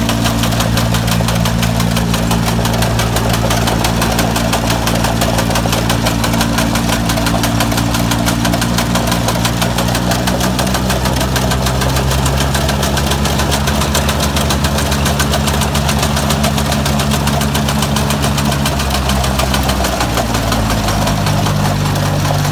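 Oshima RC191 combine harvester's engine running steadily with a fast, even firing rhythm. Its pitch shifts a little about halfway through and again near the end.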